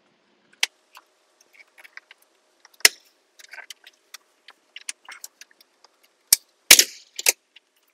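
Plastic dash trim clips popping loose as a plastic pry tool levers up a Tesla Model 3's dash trim panel: scattered sharp clicks and snaps, the loudest near the end.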